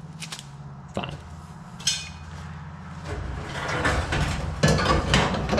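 Sheet-metal clanking and scraping as a heating element is worked into place inside a Samsung front-load dryer's cabinet: a few separate knocks at first, then from about three seconds in a louder, continuous rattle and scrape with repeated knocks.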